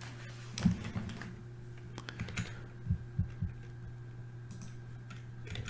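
Scattered clicks of a computer keyboard and mouse being worked, a few at a time with gaps between, over a steady low hum.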